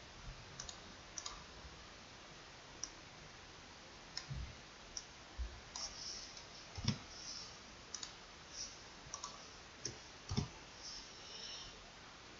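Faint computer mouse and keyboard clicks, about twenty short, irregular clicks, a few of them with a dull low thud.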